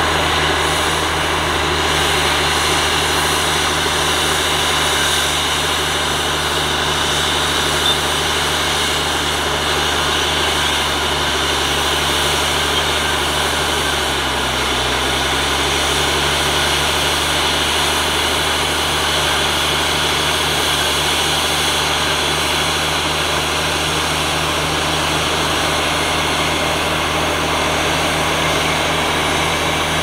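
Heavy diesel earthmoving machine running steadily under load; its engine note sags briefly about halfway through, then recovers.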